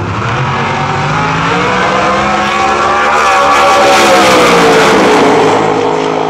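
10.5-class drag car's engine at full throttle, accelerating down the strip and passing close by. It is loudest about four seconds in, its pitch climbing and then dropping as it goes past.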